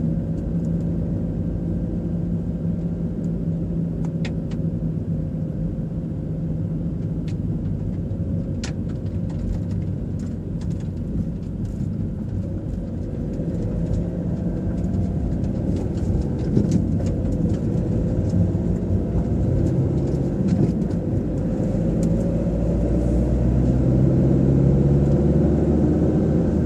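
Car engine and tyre rumble heard from inside the cabin while driving at motorway speed, steady throughout and growing louder over the last few seconds.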